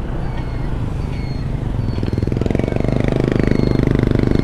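Honda ADV160 scooter's single-cylinder engine running while being ridden, growing louder about two seconds in.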